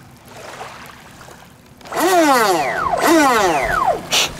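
Brushless 1500 kV inrunner electric motor of an RC race boat, spinning its propeller in the air: it is throttled up twice, about a second apart, and each time whines up and then winds down in a falling whine. It still runs after the hull took on water. A short hiss follows near the end.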